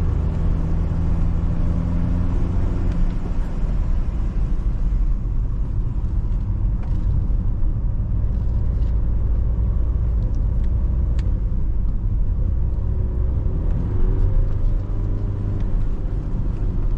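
BMW E91 320d's four-cylinder diesel engine running while the car drives, a steady low drone with road noise. The engine note drops about three seconds in and climbs again near the end.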